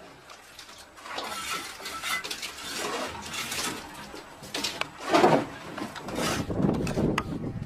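Red clay bricks clinking, knocking and scraping against one another and against the masonry as they are handled. The knocks come at irregular intervals, with a louder clatter about five seconds in.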